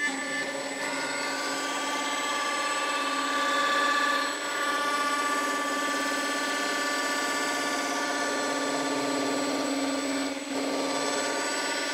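Router table running a small roundover bit, a steady high-pitched whine over the noise of the bit cutting the edges of a wooden box and drawer. The sound dips briefly about four seconds in and again about ten seconds in.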